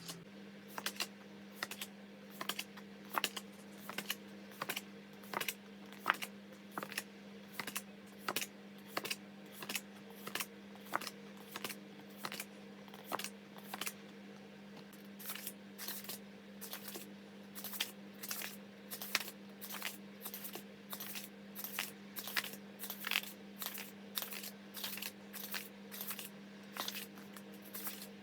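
A long, fairly even run of sharp clicks or taps, about two a second, over a steady low hum.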